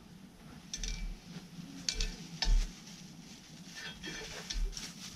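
Oil sizzling in a small enamel frying pan on a cartridge gas stove, with wooden chopsticks stirring and knocking against the pan four or five times.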